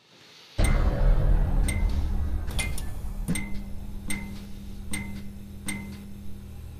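Film score sound design: a sudden deep low rumble hits about half a second in and settles into a steady low drone, with a sharp clock-like tick repeating about every 0.8 seconds over it.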